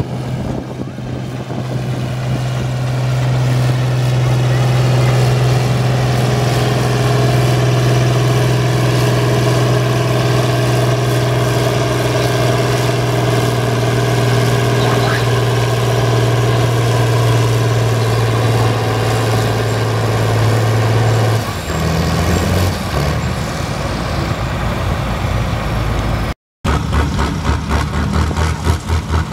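John Deere farm tractor's engine running flat out at a steady pitch under heavy load while dragging a tractor-pull weight sled. About 21 seconds in it stops, and a different tractor engine runs lower and more unevenly.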